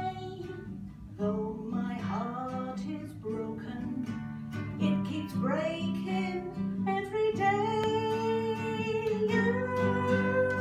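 A woman singing a song to her own strummed acoustic guitar; the singing gives way to long held notes in the second half.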